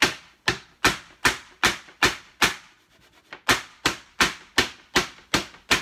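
Metal baking tray with piped macaron batter on a silicone mat being rapped down on a table, a series of sharp knocks about two or three a second with a pause of about a second midway. The rapping makes the piped macaron shells spread out and settle on their own.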